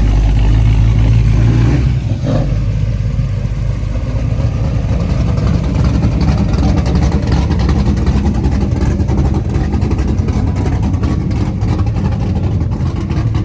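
Car engine running loud and close, a steady drone that turns into a rougher, pulsing rumble about two seconds in.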